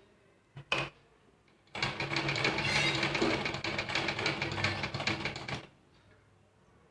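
Sewing machine stitching through fabric: a brief burst of a stitch or two about half a second in, then a steady run of rapid stitching for about four seconds before it stops.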